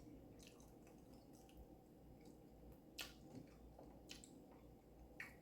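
Faint wet mouth clicks and smacks of someone chewing barbecue chicken close to the microphone, with a sharper click about three seconds in.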